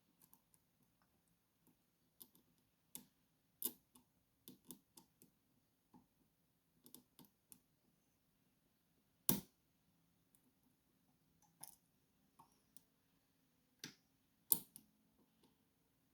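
Faint, irregular metallic clicks of single-pin picking on a stainless steel Bird rim cylinder lock: a flat hook pick and tension wrench working and setting the pins, with two louder clicks about nine and fourteen and a half seconds in.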